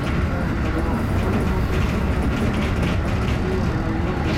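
211 series electric multiple unit running along the track, heard from inside the train just behind the cab: a steady rumble of wheels and running gear on the rails, with a faint hum from the motors.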